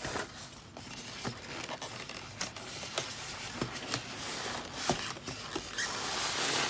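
Packing material and cardboard box being handled during an unboxing: scraping and rustling with scattered clicks and knocks, growing louder near the end.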